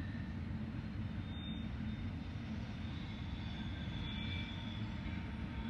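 Freight train rolling past: a steady low rumble of cars on the rails, with faint thin high wheel-squeal tones.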